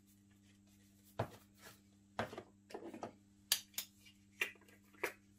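Small sharp clicks and knocks of spice jars, lids and a measuring spoon being handled on a kitchen worktop, about seven in a few seconds, over a low steady hum.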